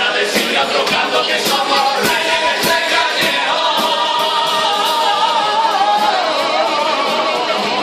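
A carnival comparsa singing in chorus, several voices together over a steady beat that falls about twice a second.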